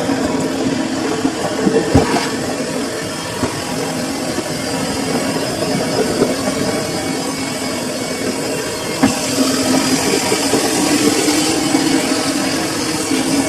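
Samsung washing machine running a load: a steady machine hum and rumble with an occasional knock, growing slightly louder after about nine seconds in.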